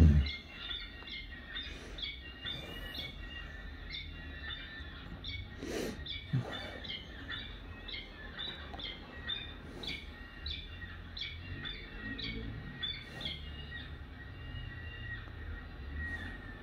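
Peregrine falcon chicks' high-pitched begging chirps, short and repeated many times, heard through a computer speaker while the adult feeds them. A single thump right at the start is the loudest sound.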